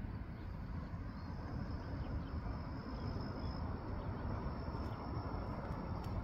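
An insect's high, thin, steady trill that starts about a second in and holds, over a steady low rumble of outdoor air.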